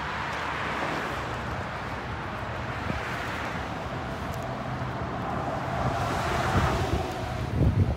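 Road traffic: cars passing on the street alongside, their noise swelling twice, with wind rumbling on the phone microphone, heaviest near the end.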